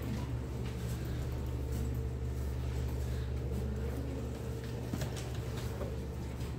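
Steady low machine hum of a computer lab's running equipment, with a few faint short clicks.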